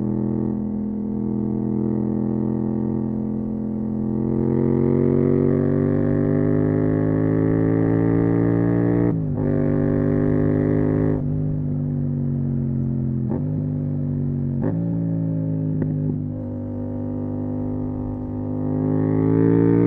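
Yamaha MT-07's parallel-twin engine breathing through a full Akrapovic titanium exhaust, ridden along. The engine note climbs as it accelerates and is cut by short breaks at the gear changes. It then eases down through a few more short breaks and climbs again near the end.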